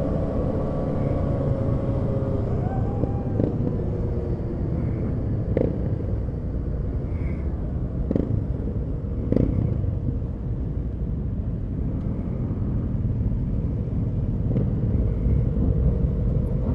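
Motorcycles riding in a group: the engine of the camera's bike runs at cruising speed with a steady low rumble of wind and road. The engine's tone stands out in the first few seconds. A few short sharp clicks come through along the way.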